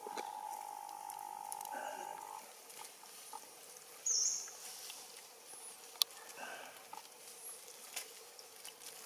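Animal calls: a steady high tone for the first two seconds or so, then a short shrill call about four seconds in, with faint high chirps and a few sharp clicks later on.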